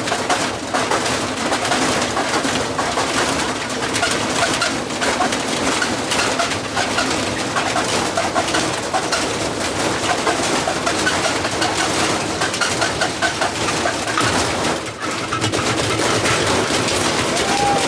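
Washing machine running its cycle with a steel brake rotor tumbling in the drum: a continuous, dense rattle of rapid metal knocks and clatter.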